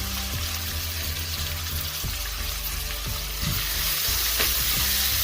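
Chopped onions and tomatoes sizzling in hot oil in a pan as they are sautéed. The steady hiss gets slightly louder about three and a half seconds in.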